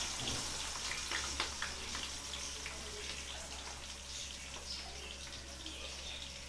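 Sliced onions sizzling and crackling in hot oil in a pot, just added. A few sharp clicks in the first second and a half as the last slices drop in from a plate.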